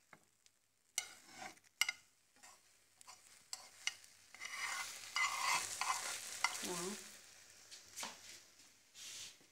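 Egg roll frying in a non-stick pan, sizzling, with scattered sharp taps and scrapes of a utensil against the pan as the rolled omelette is handled. The sizzling swells in the middle.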